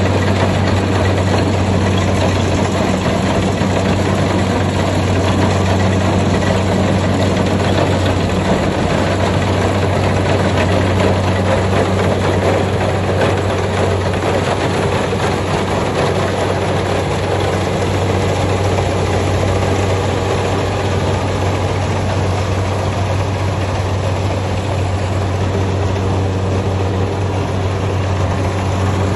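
Kubota combine harvester running steadily at work in a rice field: a constant low engine hum under a dense, even wash of mechanical noise.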